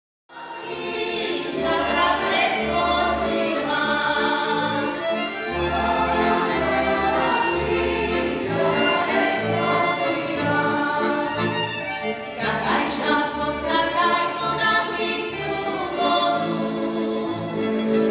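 A large group of children and women singing a Slovak folk song together, accompanied by a folk string band of violins with a low, rhythmic bass part. The music starts abruptly just after the beginning.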